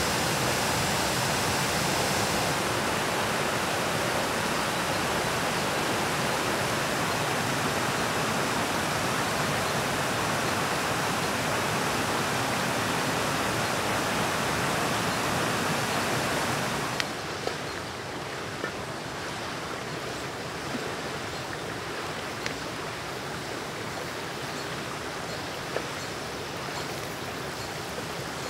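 Steady rushing of running water. About two-thirds of the way through it drops to a quieter hiss with scattered sharp pops from a wood fire burning under a pan.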